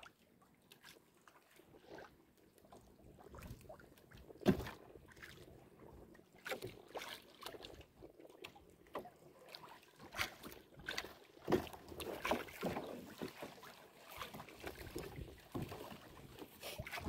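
Choppy sea splashing against a small wooden outrigger boat, with irregular knocks and thumps on the hull. The loudest knock comes about four and a half seconds in, and a cluster of knocks comes in the second half.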